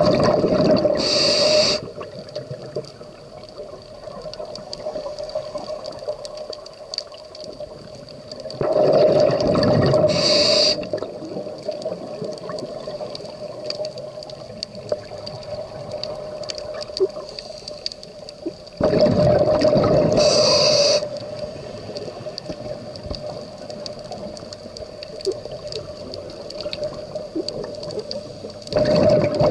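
Scuba diver breathing through a regulator underwater: a loud rush of exhaled bubbles lasting about two seconds comes roughly every ten seconds, with quieter stretches in between.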